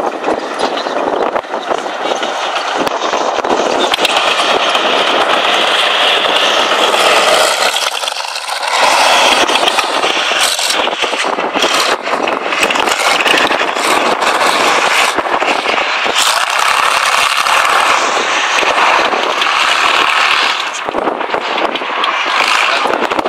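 Soviet T-34 tank driving over rough ground, its V-2 V12 diesel running with a dense clatter of steel tracks.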